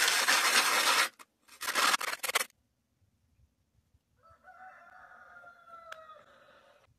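Sandpaper rubbing on a sawn wooden spindle-whorl disc by hand: a loud scratchy stroke that stops about a second in, then a shorter second stroke. Then a quieter, drawn-out rooster crow, falling in pitch, for the last few seconds.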